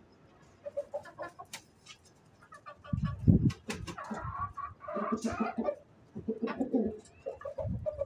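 Chickens clucking in short, repeated calls, busiest between about four and six seconds in, with a low thump just after three seconds.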